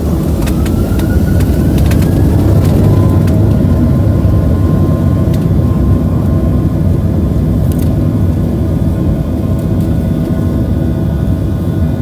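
Boeing 737-700's CFM56 jet engines spooling up for takeoff: a whine rises in pitch over the first few seconds, then holds steady over a loud low rumble.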